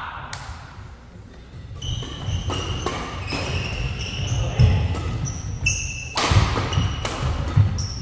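Badminton doubles rally: sharp racket strikes on the shuttlecock mixed with short high squeaks of court shoes on the wooden floor, coming thick and fast from about two seconds in, with the loudest strike a little past the middle.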